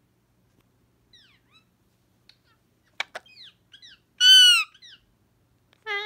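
Indian ringneck parakeet calls: soft short chirps and whistles, then one loud arching squawk about four seconds in and rising swept calls near the end. Two sharp clicks come just before the three-second mark.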